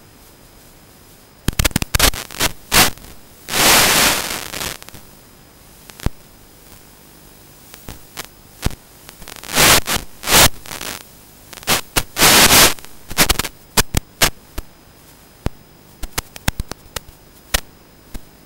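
Crackling static and scraping noise on the FPV drone's camera audio as the landed, disarmed drone is handled: irregular sharp clicks and a few longer loud bursts over a steady hiss with a faint high whine.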